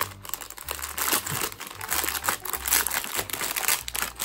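Clear plastic packaging bag crinkling and rustling as hands grip it and pull it open, in a dense run of irregular crackles.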